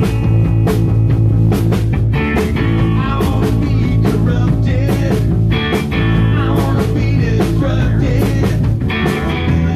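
Punk-rock band playing live with drums, bass guitar and guitar, the drums keeping a steady beat.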